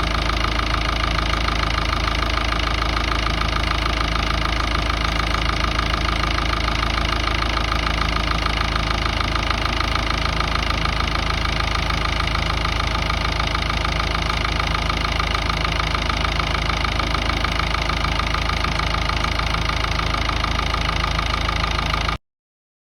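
Ford Ranger's 3.0 Power Stroke four-cylinder turbodiesel idling steadily. It cuts off suddenly near the end.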